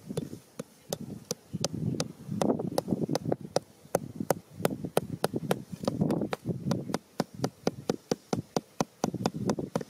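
Quick, light hammer taps driving a thin bamboo stick into sandy soil, a regular run of sharp taps about four a second, with duller low thuds in between.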